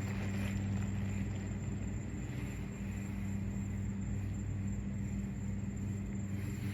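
A steady low hum with a second tone an octave above it, over a soft hiss.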